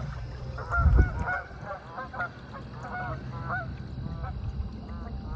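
A flock of geese honking, many short calls overlapping, with a low bump about a second in.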